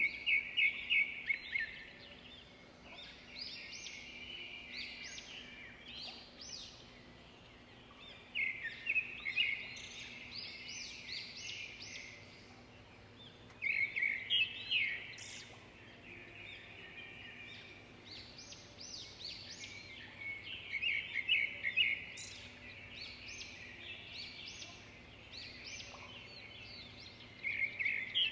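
Songbirds singing in short phrases of quick, high chirps, a new phrase every few seconds.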